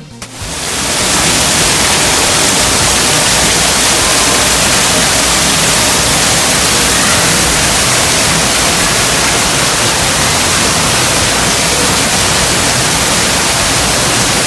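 Artificial indoor waterfall pouring into a coin-filled pool, a loud, even rush of falling water that rises in over the first second and then holds steady.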